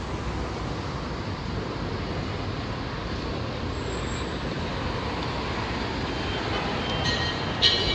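Steady outdoor street noise: an even hum of traffic and crowd, with some brighter, higher sounds coming in near the end.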